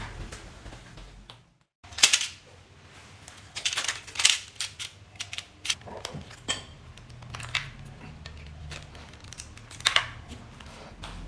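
Irregular sharp clicks and clacks, the loudest about two seconds in, just after a brief dropout to silence, with a cluster around four seconds and a few more spread through the rest.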